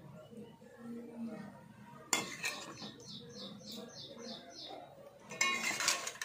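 Metal serving spoon clinking and scraping against a metal pot while scooping curry gravy: one sharp clink about two seconds in and a cluster of clinks near the end. A small bird chirps rapidly in the background.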